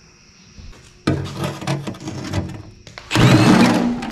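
Hand tools scraping and clattering against metal while the oil pan bolts are worked out from under the engine, starting about a second in and louder near the end.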